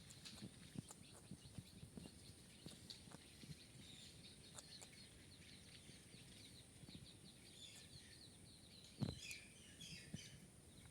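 Faint, quick, high chirps from a young parrot in a run lasting a few seconds, over scattered light taps, with one louder thump about nine seconds in.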